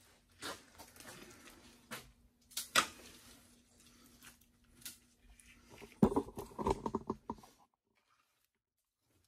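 Soil and rubble being scraped and pulled by hand from around a buried sewer pipe, with scattered small clicks of falling debris. About six seconds in, a louder stretch of scraping and rustling; the sound cuts off suddenly near the end.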